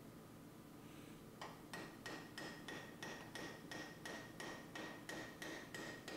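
Hammer driving a cold chisel into a steel canister clamped in a bench vise, about three blows a second, each with a metallic ring. The blows begin about a second and a half in. The chisel is cutting the can away from the forge-welded powder-steel Damascus billet inside.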